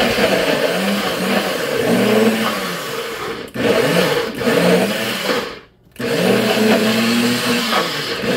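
NutriBullet personal blender running in pulses, its motor pitch wavering as it chops a thick, chunky mixture. It breaks off briefly about three and a half seconds in, stops for about half a second about two-thirds of the way through, then runs again.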